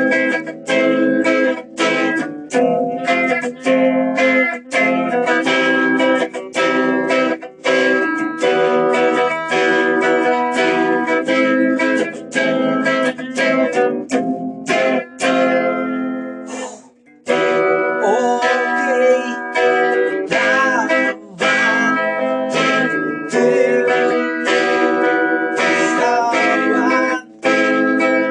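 Electric guitar playing a picked melody, heard over a video call. It stops briefly about halfway through, then resumes with a few string bends.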